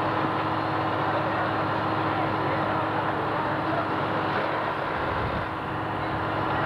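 Fire apparatus engine running steadily with a constant low hum, under a dense rush of noise.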